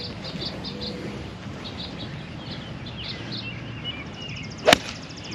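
A golf club striking a ball: a quick swish of the swing ending in one sharp crack near the end.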